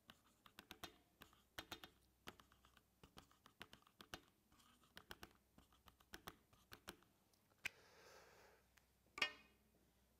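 Faint, irregular key clicks of typing on a MacBook laptop keyboard, with a soft rushing noise about eight seconds in and a louder short sound near the end.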